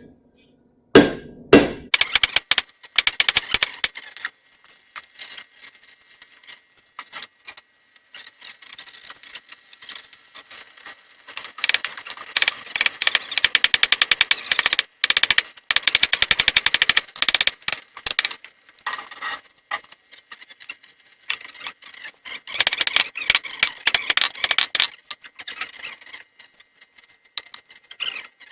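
Hammer striking hot sword steel on an anvil: two heavy blows about a second in, then runs of rapid, evenly spaced metallic strikes at many blows a second, with short pauses between runs. A faint steady high tone sits underneath.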